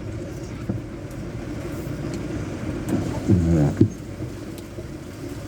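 Heavy rain pouring down in a steady low rumble, with a motor vehicle's engine rising briefly above it about three seconds in.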